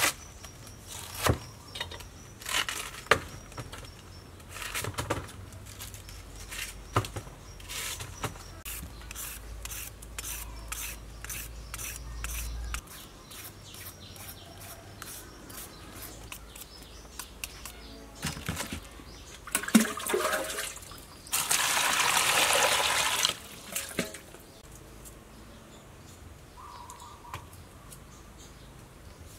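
A knife chopping cabbage on a thick wooden chopping board: a run of sharp knocks, some in quick even runs, through the first half. About two-thirds of the way in, water pours and splashes into a basin for about three seconds.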